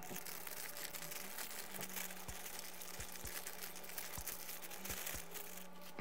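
Faint crinkling of a clear plastic polybag as sealed plastic model-kit runners are handled and taken out, with a few soft low knocks.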